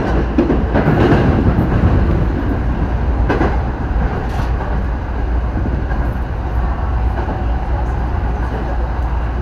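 Running noise of an electric commuter train heard from inside the front car: a steady rumble with a few clacks as the wheels cross points in the first few seconds.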